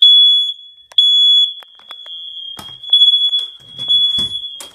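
Household smoke detector sounding on its test button: a loud, piercing high-pitched beep in half-second pulses about a second apart, with a fainter tone carrying between them. It cuts off near the end.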